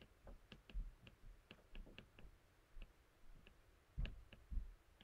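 Faint taps and clicks of a stylus writing on a tablet's glass screen: a string of short, irregular ticks, with two duller knocks about four seconds in.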